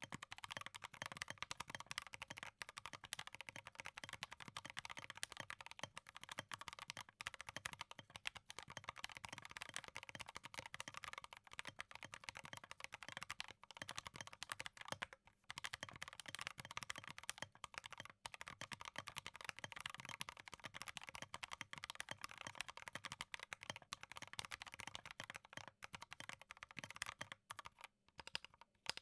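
Continuous typing on a Drop Alt mechanical keyboard with Gateron Ink Black linear switches and OSA Sleeves keycaps: a rapid, dense patter of keystrokes, with brief pauses about fifteen seconds in and again near the end.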